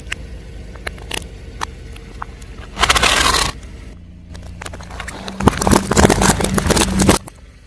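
Car running at low speed as its tyre rolls over and crushes brittle objects: a short burst of crunching about three seconds in, then a longer run of rapid crackling and snapping from about five and a half seconds until just before the end.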